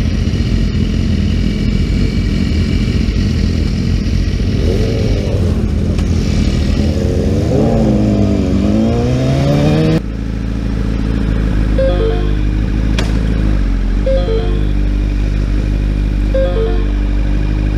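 Sport motorcycle engine running while riding, its pitch gliding up and down, then dropping abruptly to a steadier idle about ten seconds in. From about twelve seconds, a short electronic ring repeats every two seconds or so: an incoming phone call through the bike's Bluetooth speakers.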